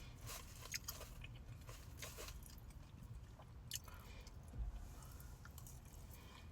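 A person chewing a mouthful of deep-fried crab cake, faint, with scattered short mouth clicks.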